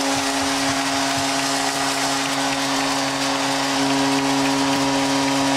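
Arena goal horn sounding one long steady note over a cheering crowd, cutting off near the end; it marks a home-team goal.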